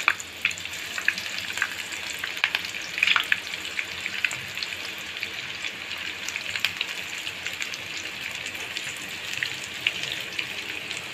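Prawn pakoda fritters (prawn, onion and gram-flour batter) deep-frying in hot oil: a steady sizzle with many scattered crackles and pops, a little denser in the first few seconds.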